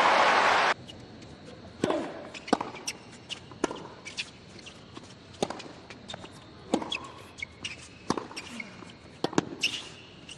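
Crowd applause that cuts off abruptly under a second in, then a tennis rally: sharp racket strikes on the ball and ball bounces on the hard court, about one every half-second to second, with a few short sneaker squeaks.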